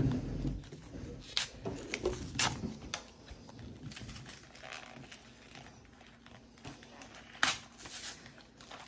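Crinkling and tearing of a Pokémon card booster pack's wrapper as it is picked at and pulled by hand, in irregular sharp rustles with quieter handling between. A low thump right at the start.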